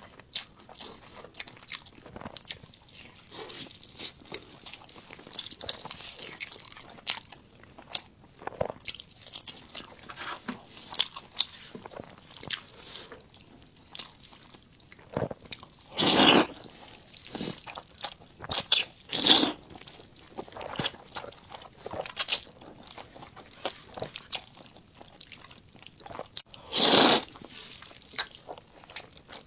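Close-miked mukbang eating sounds of spicy Schezwan fried noodles: wet chewing and crunchy bites with many small mouth clicks. Louder, longer bursts of eating come about half-way through and again near the end.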